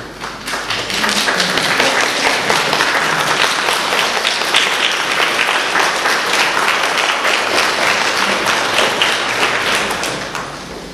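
A congregation applauding: dense clapping that builds up about half a second in, holds steady, and fades out near the end.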